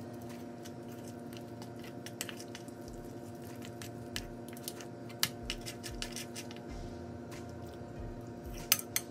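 Metal spoon stirring thick flour-and-corn-starch batter in a ceramic bowl: soft squelching, with scattered clinks and scrapes of the spoon against the bowl that come faster and louder near the end. A steady low hum runs underneath.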